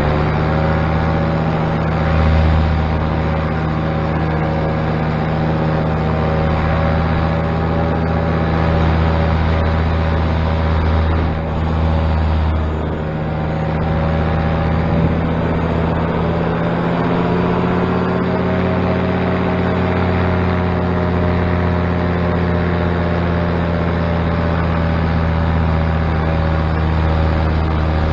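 Paramotor engine and propeller running steadily in flight, heard close up from the pilot's harness; the engine note dips briefly about twelve seconds in and settles at a slightly different pitch a few seconds later. By the pilot's account the propeller has already lost one end of its new prop tape.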